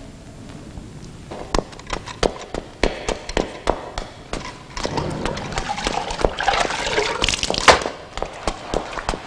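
Shoes tapping on stone stairs in irregular footsteps, about two a second. A louder, denser stretch of rustling sits in the middle.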